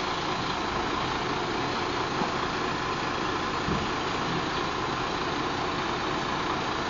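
Concrete mixer truck's diesel engine idling steadily.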